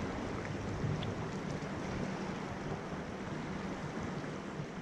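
Steady rushing of a fast, high-running river.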